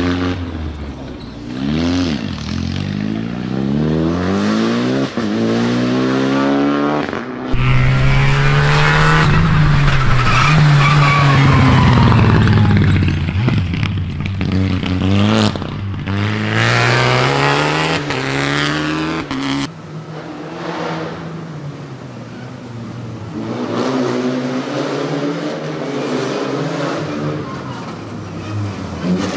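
Renault Clio Rally5 rally car's turbocharged four-cylinder engine revving hard through gear changes as the car passes at speed on a rally stage. Several passes are cut together, and the loudest one is about a third of the way in.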